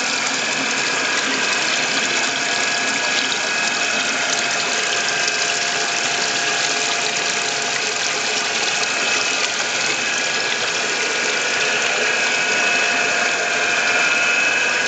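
Steady mechanical hum with a hiss of moving water and a few high, held whining tones, heard underwater.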